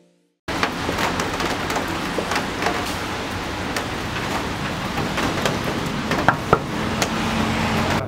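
Rain falling on hard wet ground, a steady hiss full of scattered drop taps and splats.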